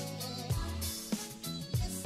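Background music: an instrumental track with a steady drum beat over a bass line.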